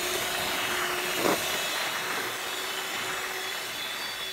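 Electric hand mixer running steadily, its beaters whisking through a thick cream cheese and crushed-cookie mixture in a stainless steel bowl, briefly louder about a second in.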